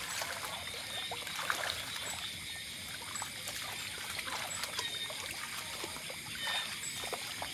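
Water trickling and splashing lightly as people wade through a shallow pond, in small irregular strokes. Behind it runs a steady high-pitched background with short chirps repeating every second or so.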